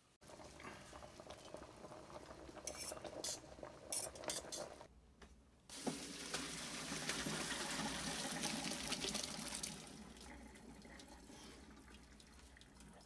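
Hot cooking water and boiled potato chunks poured from a stainless steel pot into a plastic strainer in the sink: a steady rush of water starting about six seconds in and tapering off near the end. Before it, fainter water sounds and a few light clinks.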